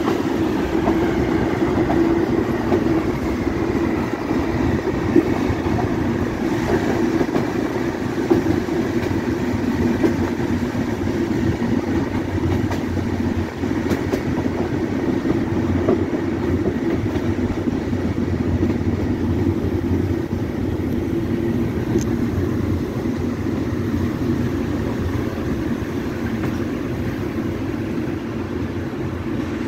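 Passenger train coaches running on the rails, heard through an open window: steady wheel and running noise mixed with wind. The noise eases off toward the end as the train slows into a station.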